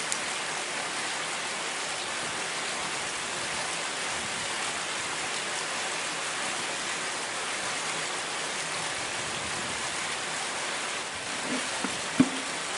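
Steady, even hiss of water, with a few short sharp clicks near the end.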